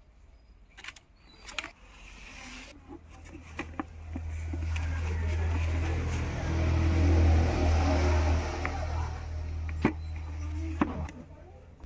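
A motor vehicle passing close by: its engine rumble builds over several seconds, peaks midway and fades away. A few sharp knocks from handling the helmet come near the start and near the end.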